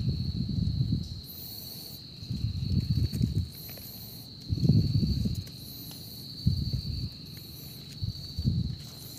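Night insects shrilling steadily on one high pitch. Over them, about every two seconds, comes a louder low rustling and knocking of hands working in the leaf litter and soil while picking mushrooms.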